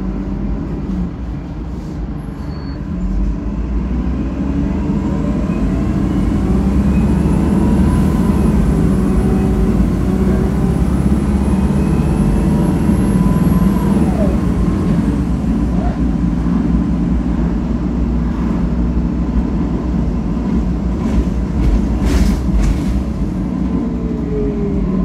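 Inside a 2008 ADL Enviro 300 bus with a ZF Ecomat automatic gearbox, pulling away and accelerating: a heavy engine drone under a whine that rises in pitch for about ten seconds, then drops sharply at a gear change about halfway through. After that it runs on more steadily, with a few rattles near the end.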